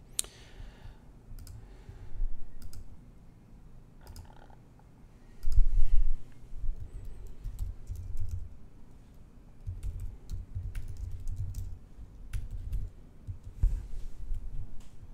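Typing on a computer keyboard with mouse clicks: scattered keystrokes and clicks, with dull low thumps, the loudest about five and a half seconds in.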